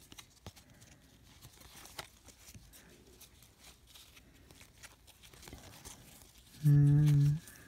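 Cardboard trading cards being thumbed off a stack one after another, with soft scraping and small clicks as card slides over card. Near the end a man's voice gives a short, steady hum, the loudest sound.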